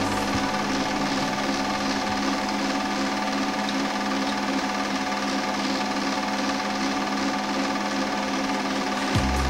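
Film projector running steadily: an even mechanical clatter under a constant hum.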